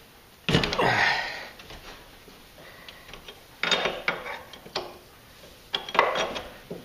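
Wrench clicking and scraping against the high-pressure power steering line fitting on a steering gearbox as the line nut is loosened, in several short bursts.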